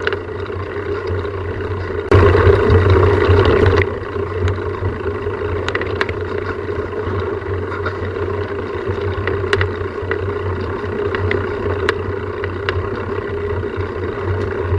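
Steady low mechanical hum, with a louder rush of noise for about two seconds starting about two seconds in, and scattered light clicks.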